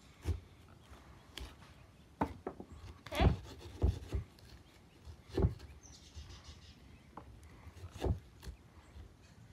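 Hand carving of a pumpkin: a carving tool scrapes at the flesh, with several irregular knocks and thumps as the pumpkin is worked and shifted on the wooden board.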